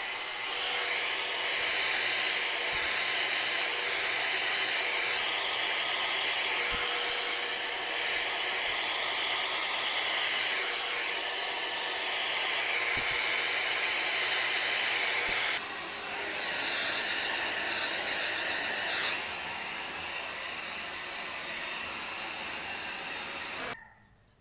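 Handheld hair dryer blowing on its medium setting: a loud, steady rush of air with a faint hum, its tone wavering as it is moved over the hair. It drops in level about fifteen seconds in and is switched off near the end.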